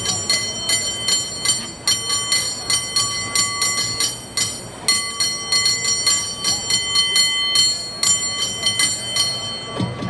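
San Francisco cable car bell rung rapidly in a rhythmic contest pattern, quick strikes that leave the bell ringing, broken by short pauses between phrases and stopping near the end.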